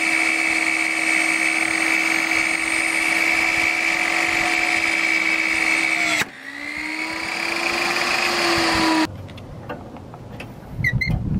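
A 10-inch Chicago Electric table saw running with a steady whine. After an abrupt break about six seconds in, its pitch rises slowly as it spins up. About nine seconds in it cuts off sharply to a quiet background with a few short high chirps near the end.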